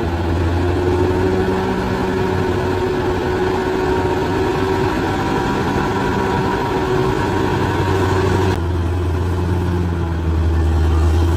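Large bulldozer's diesel engine running steadily. The sound turns abruptly duller about eight and a half seconds in.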